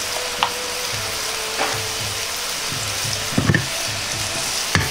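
Julienned carrot and ginger sizzling in hot oil in a frying pan, a steady frying hiss. A few short clicks and knocks of stirring and moving the pan come through, the loudest ones a little past the middle and near the end.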